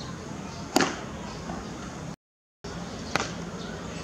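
Beach tennis paddle striking the ball: one loud, sharp smash about a second in, then, after a short break in the sound, a lighter crack of another hit about three seconds in.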